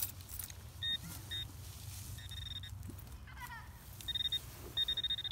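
Handheld metal-detecting pinpointer probing a dug hole, giving a few short high-pitched beeps and then a longer steady tone near the end as it picks up metal in the hole.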